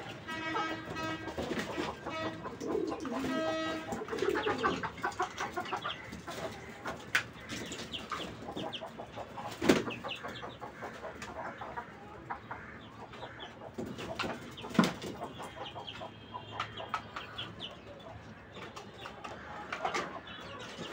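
Silky and Kadaknath roosters fighting: scuffling and wing flapping, with two sharp thumps about ten and fifteen seconds in. Pigeons coo and a chicken calls in the background, most of it in the first few seconds.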